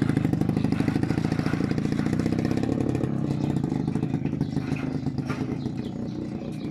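Motorcycle tricycle (motorcycle with a sidecar) running as it pulls away and rides off, its engine growing steadily fainter.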